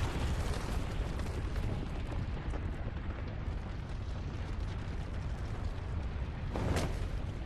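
Deep, continuous rumble of a large explosion and its billowing smoke and debris, with one short sharp burst of noise near the end.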